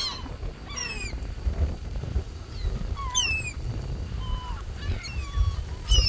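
Gulls calling: short, harsh cries that drop in pitch, repeated several times, some overlapping, over a low rumble.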